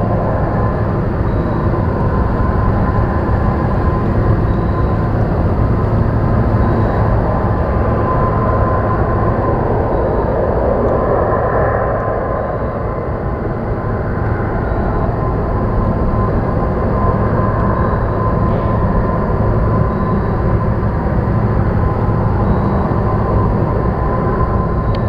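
Steady industrial din from the Zug Island steel works: a constant low hum and a thin steady high tone under a broad rumble. A faint high beep repeats every two to three seconds.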